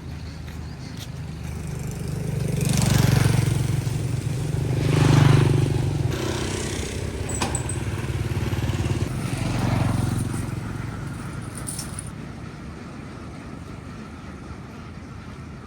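Motorbike engines running, swelling louder three times, about three, five and ten seconds in, then fading back to a steady hum.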